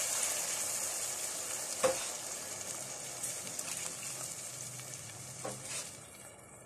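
Rice frying in oil and ghee sizzles as hot water is poured into the pot. The sizzle fades steadily and dies away near the end, with a single knock about two seconds in.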